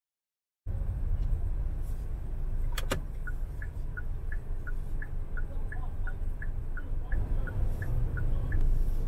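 Low rumble of street traffic, starting after a moment of dead silence, with one sharp click about three seconds in. A small high chirp repeats about three times a second for several seconds.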